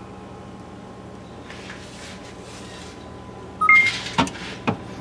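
Mini-fridge door being opened over a faint steady hum: a short squeak, then two sharp clicks.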